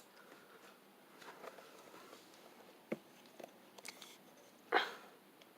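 Faint steady background noise from a refrigerator running. A few light clicks are scattered through it, and a short rustle comes about three quarters of the way through.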